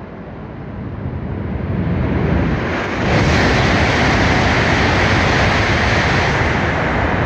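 E5-series Shinkansen passing through the station at high speed: a rushing noise of air and wheels that builds over the first few seconds, then stays loud and steady.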